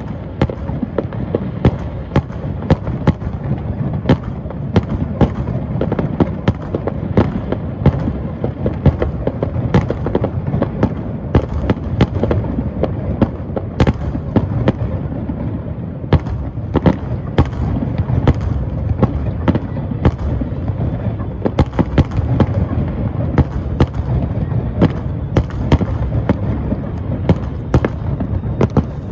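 Fireworks display: a dense, continuous rumble of booming shells with frequent sharp cracks, several a second.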